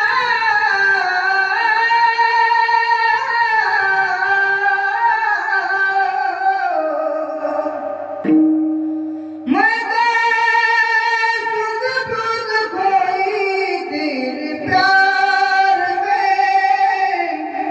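A high solo voice singing long, ornamented held notes of a devotional song, the pitch gliding and wavering within each line. About eight seconds in the voice breaks briefly while a steady held instrumental tone sounds, then the singing resumes.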